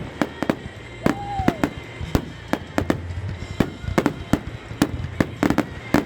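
Fireworks going off in rapid succession: many sharp bangs and crackles, with one whistling firework whose tone falls in pitch about a second in.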